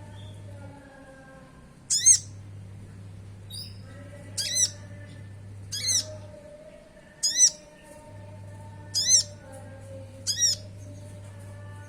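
A konin sunbird repeating a short, sharp, high call about every one and a half seconds, over a faint steady low hum.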